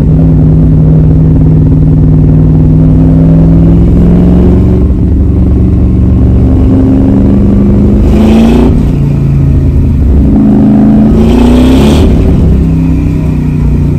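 A 1965 Mustang's 289 Ford small-block V8, breathing through twin 1200 cfm VenturiLess Holley carburetors on an independent-runner setup with one barrel per cylinder, heard from inside the car while driving. The engine pulls steadily. About eight seconds in, and again near eleven, the revs climb briefly with a rush of intake noise and then drop away.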